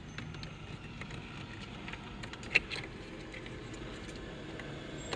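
Small clicks and handling noises as a new aux port is fitted into a car's centre console, with one sharp click about two and a half seconds in, over a faint steady hum.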